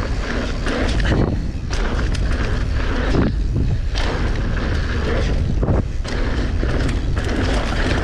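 Mountain bike ridden fast down a dirt jump trail. Wind buffets the microphone with a heavy rumble under a steady noise of tyres on dirt, and the bike knocks sharply several times over bumps and landings.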